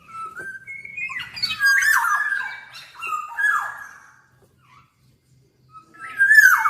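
Black-naped oriole (kepodang) singing: a run of fluty whistled notes, several sliding downward, mixed with a few harsher notes, lasting about four seconds. After a pause of a couple of seconds, another phrase starts near the end.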